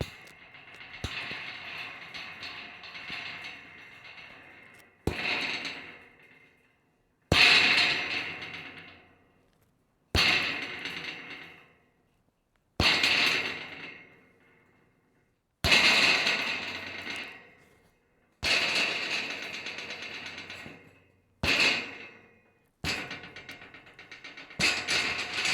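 Pieces of scrap metal rattling and clattering in a series of separate bouts, each starting sharply and dying away over a second or two, about every two to three seconds, coming closer together near the end.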